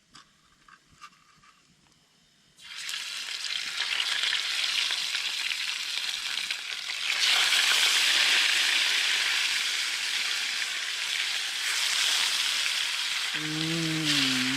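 Grayling frying in hot oil in a pan. After a few light clicks, the sizzling starts suddenly about two and a half seconds in and grows louder about seven seconds in. Near the end there is a brief hummed voice sound.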